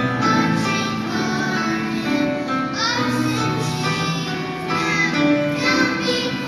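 Children's choir singing a song, with an acoustic guitar strumming along.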